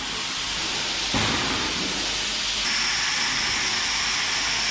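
Large CO2 laser fabric-cutting machine running: a steady hiss with a faint high whine that rises at the start. The noise grows louder about a second in and again a little later.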